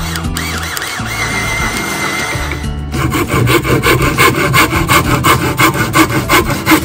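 A cordless drill-driver whines as it drives a screw into wood, its pitch swooping and then holding steady. A sudden cut follows, then a hand saw cuts a thin wooden strip with quick, even strokes.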